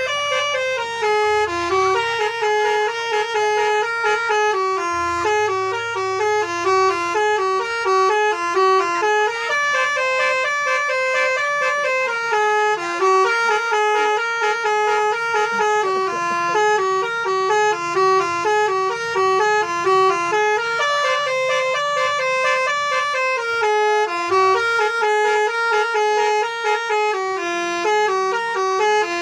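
Bus's Basuri telolet multi-tone air horn playing a fast, unbroken melody of quickly stepping notes, with a faint low hum underneath.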